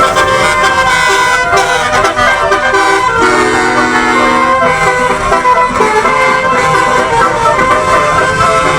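Buses' multi-tone telolet (basuri) musical horns sounding loudly, a run of changing horn notes with one tone held from about three to four and a half seconds in.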